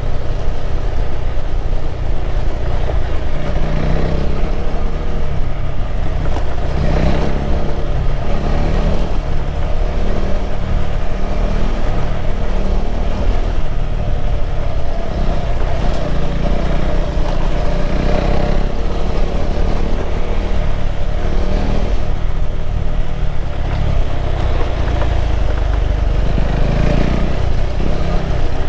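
KTM 390 Adventure's single-cylinder engine running under way at low speed along a dirt track, a steady loud drone with the revs rising and falling a little, mixed with road noise.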